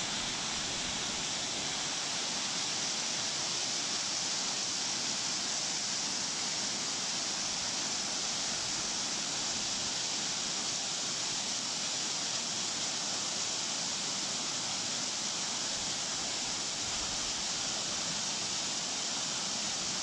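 Waterfall pouring down rock ledges: a steady, unchanging rushing hiss.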